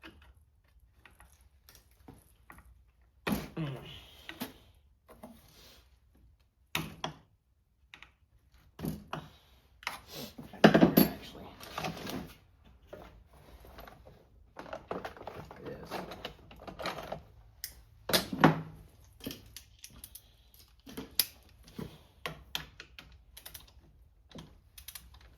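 Socket wrench clicking as bolts are worked loose on a Homelite C5 chainsaw, with irregular metal clinks and a few louder knocks of tools and parts.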